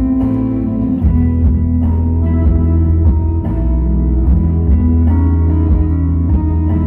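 Pop music with guitar and a strong bass line over a steady beat.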